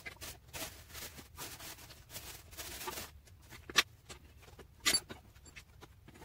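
Plastic shipping wrap rustling and crinkling as it is handled and pulled off a mini bike, with two sharp clicks about a second apart near the middle.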